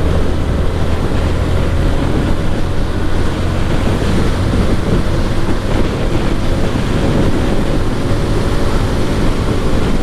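Yamaha R15 V4's single-cylinder engine pulling hard in sixth gear at about 90 to 95 km/h. Heavy wind noise on the microphone covers much of the engine.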